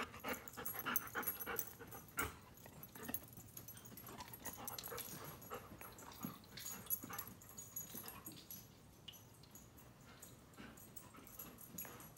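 Faint sounds of a golden retriever moving about as it searches, with scattered soft clicks and knocks.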